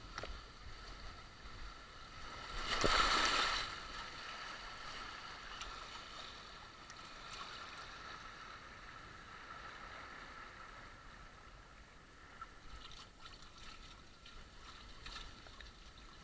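Water rushing and splashing around an inflatable ring tube as it slides down a water slide, with one loud splashing surge about three seconds in, then a steadier rushing hiss and a few small knocks near the end.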